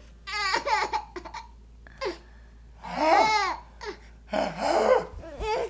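Baby laughing and babbling in about half a dozen short bursts of squealing giggles that slide up and down in pitch, with pauses between them.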